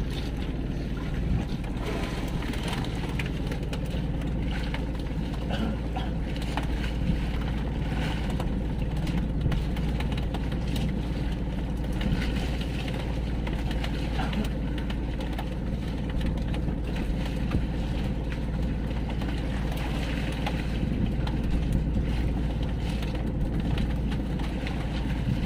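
Motorized fishing boat's engine running steadily at sea, with wind rumbling on the microphone and water noise.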